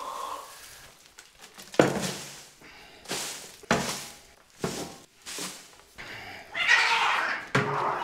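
A shovel scooping old wood-shaving bedding and dumping it into a plastic garden cart, with about five sharp knocks of the shovel against the cart. Near the end, a loud rough screeching burst: cats fighting.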